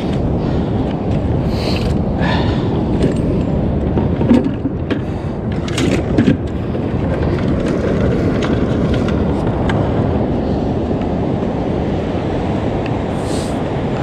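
Steady rush of ocean surf and wind on the microphone, with a few small clicks and knocks scattered through the first half.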